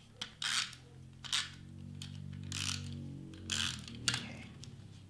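A handheld glue tape runner is rolled along a paper layer in about five short strokes, its mechanism rasping as it lays the adhesive. A low steady hum sits underneath until about four seconds in.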